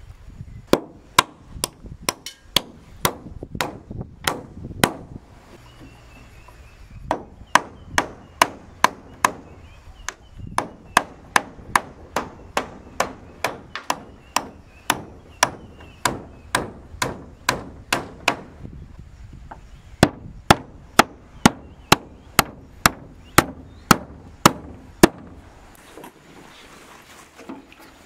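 Hammer striking over and over on corrugated roofing sheets as they are fixed down to the roof frame, about two blows a second. The blows come in four runs with short pauses in between.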